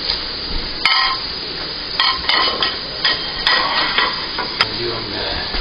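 Ceramic plates and utensils clinking and knocking as food is plated, about six sharp clinks, several with a brief ring, over a steady sizzling hiss from the grill.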